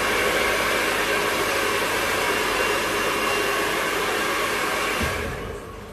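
Handheld hair dryer blowing hair: a steady rush of air with a faint motor whine, dying away about five seconds in.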